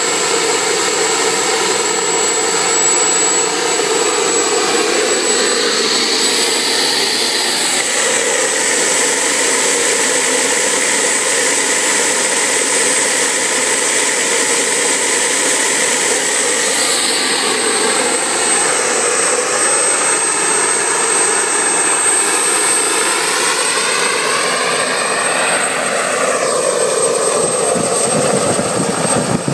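Home-built turbocharger jet engine running continuously: a loud rushing roar with a steady high-pitched turbine whine over it. The tone of the roar shifts a little now and then.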